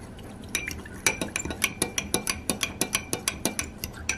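Metal fork stirring cornstarch and water in a small glass bowl, its tines clinking against the glass in quick, even strokes, about six a second, starting about half a second in.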